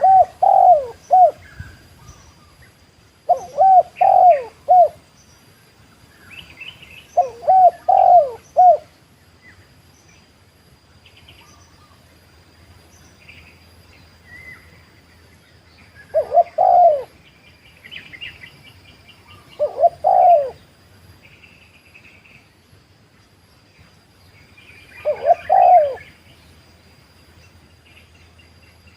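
Spotted dove cooing: six phrases of three or four low hooting notes, a few seconds apart, with a longer gap in the middle. Faint chirps of small birds and a steady thin high whine sit behind it.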